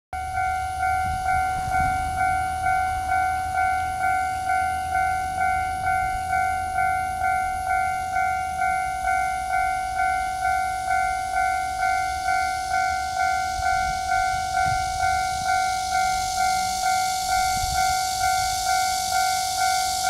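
Taiwan Railways level-crossing warning bell ringing in a steady repeating pattern, about two strikes a second, each strike a ringing tone that dies away quickly: the crossing is active, with a train approaching. A faint high hiss grows in the second half.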